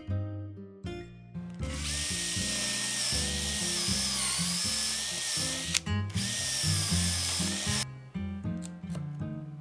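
Electric drill boring into a wooden block, running with a steady whine for about six seconds, stopping briefly once, its pitch sagging for a moment as it bites, over background music.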